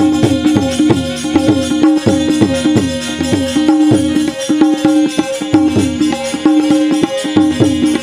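Harmonium holding a steady melody over a hand drum beating a steady rhythm with gliding bass strokes, and jingling rattle-like percussion: an instrumental interlude between sung lines of a devotional bhajan.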